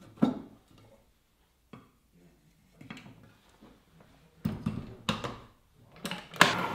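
Stainless steel jug of a food processor being handled and set into the machine's base: a single clack just after the start, then a run of knocks and clunks in the last two seconds, the loudest near the end.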